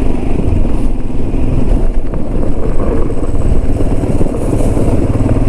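Royal Enfield Himalayan's single-cylinder engine running steadily as the motorcycle rides off.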